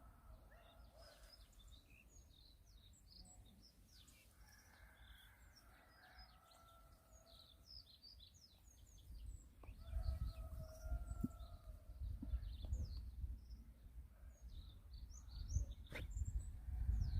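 Small birds chirping: many short, high calls throughout, with a few longer held notes. A low rumble gets louder about halfway through.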